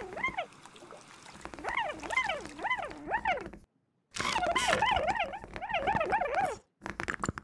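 A warbling cartoon sound whose pitch swings up and down a little over twice a second. It comes in two stretches with a short silent break between them, the second opening with a brief rush of noise, and a few quick clicks follow near the end.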